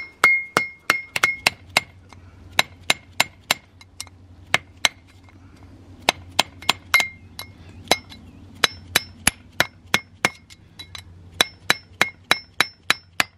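Hammer blows on a screwdriver, driving a rust-seized brake piston out of a BMW 7 Series rear brake caliper. The strikes are sharp metal-on-metal impacts with a short ring, in runs of several blows about two to three a second, with short pauses between the runs.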